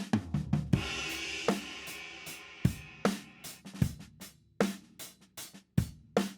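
Recorded drum kit played back from a drum room microphone track under heavy bus compression: kick and snare in a steady beat with hi-hat. A crash cymbal rings out about a second in and fades away.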